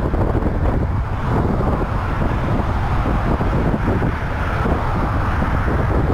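Wind buffeting the microphone of a bike-mounted camera while riding, over a steady rush of traffic from the freeway running beside the path.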